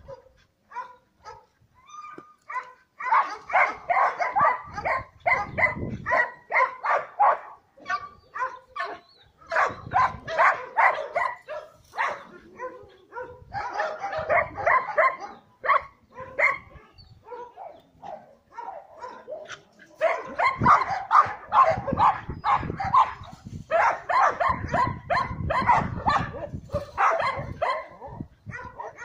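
Dogs barking in quick runs of sharp barks, several a second, coming in bouts with short pauses between them.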